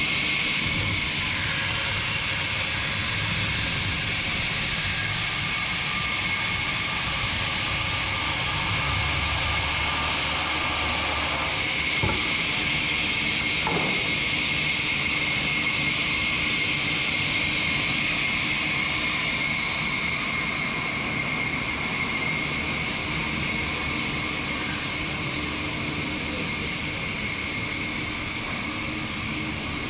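Large vertical band saw running and ripping planks, a steady loud machine noise with a high whine, plus one sharp knock about twelve seconds in. It grows a little fainter near the end.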